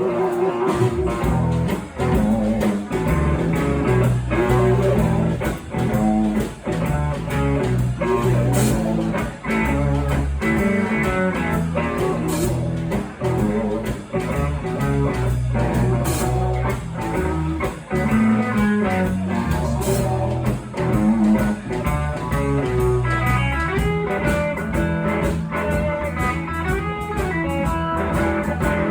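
Live band playing blues, led by guitar, in an instrumental stretch without vocals.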